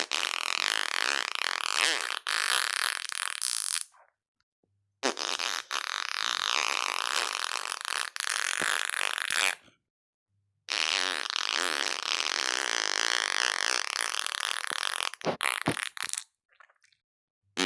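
A series of fart sounds: three long ones of about four seconds each with short silent gaps between them, then a few short ones near the end.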